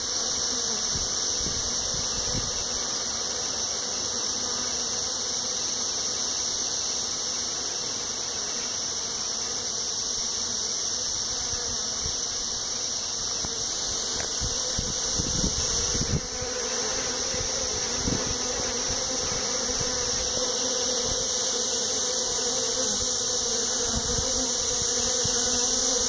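Honeybees buzzing at the entrance of a top-bar hive: a steady hum of many bees flying in and out, growing a little louder near the end.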